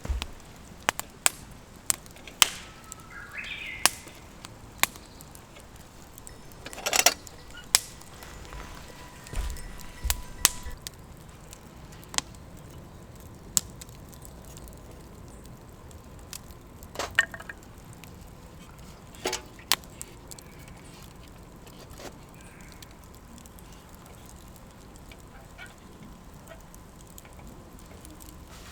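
Wood campfire burning, with sharp, irregular snaps and pops from the firewood over a low steady hiss.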